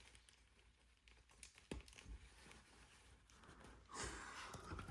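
Faint, scattered small plastic clicks and a soft rustle near the end, from plastic action figures being handled and fitted together.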